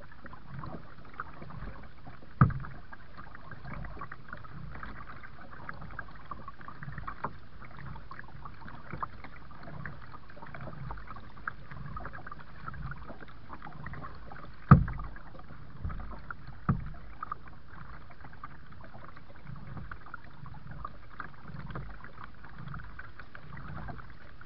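Kayak paddling: paddle strokes through the water at a steady rhythm, with a few sharp knocks, the loudest about fifteen seconds in.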